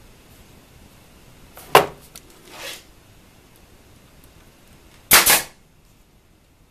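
Pneumatic nailer firing twice, a sharp shot about two seconds in and a louder double shot about five seconds in, with a softer noise between them.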